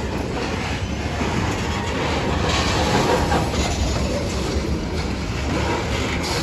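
Freight train rolling past, its cars' steel wheels running on the rails with a steady, even noise.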